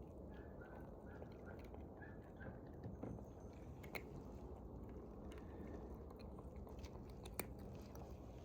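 A cat chewing its food, faint, with a few sharp clicks.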